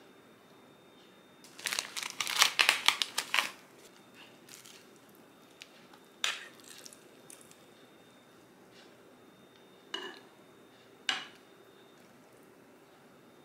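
Plastic packaging film crinkling and crackling for about two seconds as a smoked-salmon package is opened, followed by a few single short clicks and taps as the slices are handled with metal tongs.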